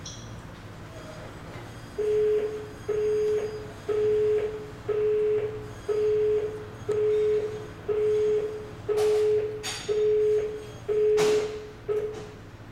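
Electronic key card door lock's buzzer beeping steadily, eleven even beeps about one a second, with two sharp clicks near the end.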